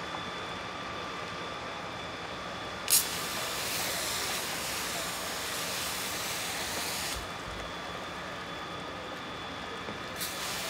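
A jet of water from a firefighting hose splashing down onto canal water, a steady hiss. It starts with a sudden burst about three seconds in, cuts off about four seconds later, and starts again with a burst near the end, over a steady background hum.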